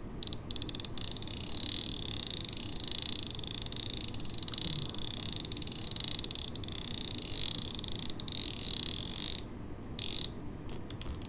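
Shimano SLX DC baitcasting reel with an aftermarket line-out clicker fitted, buzzing with rapid, even clicks as the spool spins and line pays out. The buzz stops about nine and a half seconds in, then comes back in two short bursts.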